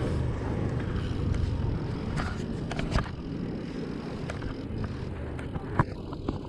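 Mountain bike being ridden: steady wind and tyre rumble on the microphone, with scattered clicks and knocks as the bike rattles over bumps.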